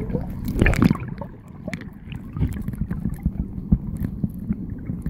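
Water sloshing and gurgling in a shallow tide pool, heard muffled through a camera held underwater, with scattered knocks and clicks. A louder rush of water comes in the first second.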